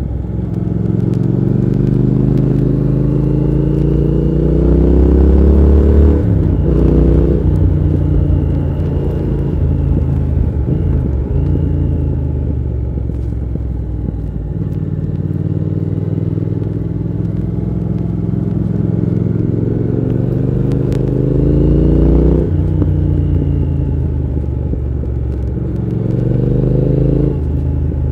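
Triumph Thruxton R 1200 parallel-twin engine accelerating hard through the gears. Its note climbs steadily, then drops abruptly at each upshift, four times over.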